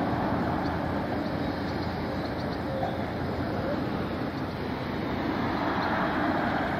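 Tram rolling along curved track, mixed with a steady rumble of wind on the microphone and street traffic.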